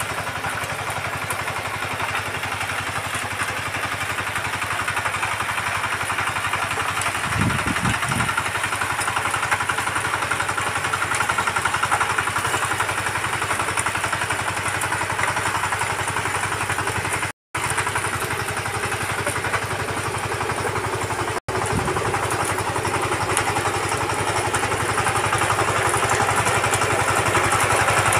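VST Shakti 130 DI power tiller's single-cylinder diesel engine running steadily under load while its rotary tines till soil, growing louder near the end as the machine comes close. The sound cuts out briefly twice in the second half.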